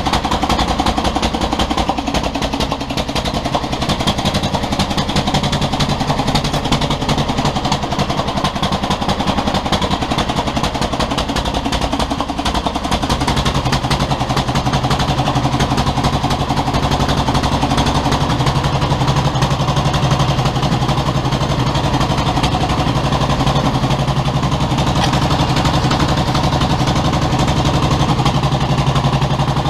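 1957 John Deere 420's two-cylinder gasoline engine running steadily just after a cold start with the choke pulled out, its firing pulses even throughout. About 13 seconds in, the engine note settles slightly lower.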